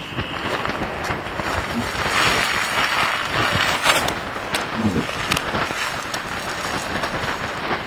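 A rolled canvas tent being unrolled over a woven plastic tarp: continuous rustling and crinkling of the fabric and tarp, loudest in the middle, with a few sharp crackles.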